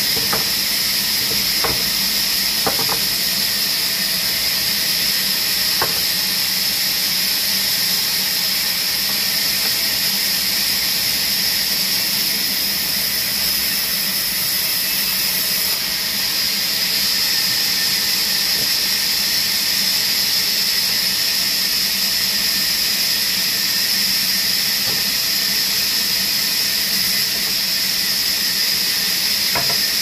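Large vertical band saw running as a long wooden plank is fed through and ripped lengthwise: a loud, steady high hiss of the blade cutting the wood. A few light knocks in the first several seconds.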